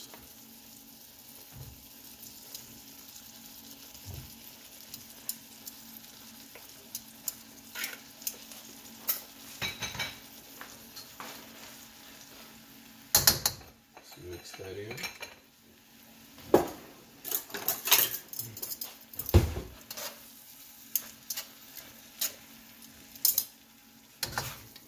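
Noodles frying in a wok with a light sizzle while a metal spatula stirs and tosses them, clicking and scraping against the pan in irregular knocks that grow busier in the second half. A steady low hum runs underneath.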